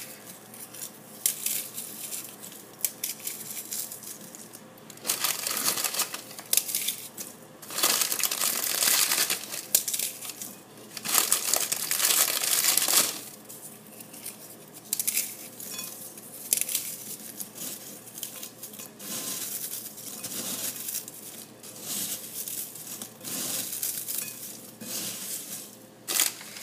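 Ritz crackers being crushed into crumbs: irregular dry crunching and crackling that comes in bursts, loudest in stretches about five, eight and eleven seconds in.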